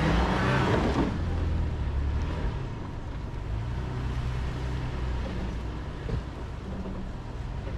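Toyota 4Runner's engine running under throttle as it powers out of a muddy hole in four-low.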